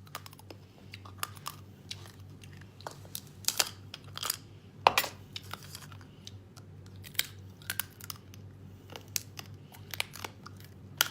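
Close-miked crunchy chewing and biting, irregular sharp crunches a few times a second, the loudest about five seconds in, over a steady low hum.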